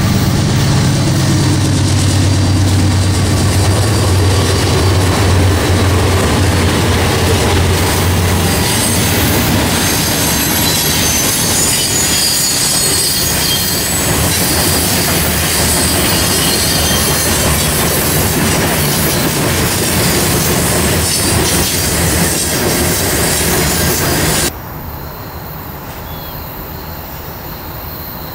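Diesel freight locomotives pass close by with a deep engine rumble for the first several seconds. Then container flatcars roll past, a steady rumble and rattle of wheels on rail with high-pitched wheel squeal. Near the end the sound drops suddenly to a much quieter background.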